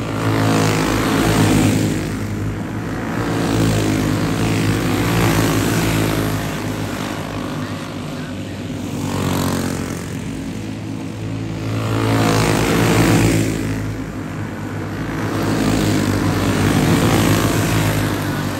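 A pack of dirt-oval racing karts with single-cylinder four-stroke clone engines running hard. Their drone swells and fades about five times as the pack comes by, the pitch sliding a little with each pass.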